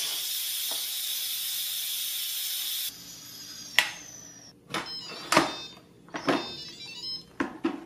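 Instant Pot Duo Mini's steam release valve venting the pressure left after a 10-minute natural release: a steady, loud hiss that stops abruptly about three seconds in. Then several clicks and knocks, some with a short ring, as the pressure-cooker lid is handled and opened.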